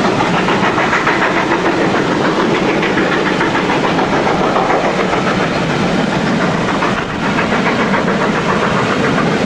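Steam-hauled train double-headed by GWR King class 6024 King Edward I and Castle class 5029 Nunney Castle running past close below: locomotive exhaust and the coaches rolling over the rails, a loud continuous rush with rapid beats, dipping briefly about seven seconds in.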